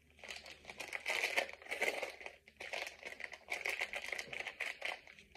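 Small clear plastic charm packet crinkling on and off as it is handled in the hand.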